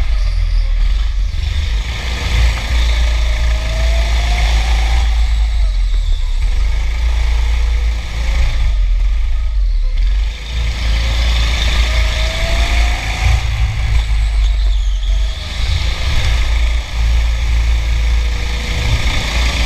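Go-kart driven at speed, heard from onboard: a loud low rumble of vibration and buffeting, over which the kart's motor note climbs in pitch several times as it accelerates out of the corners.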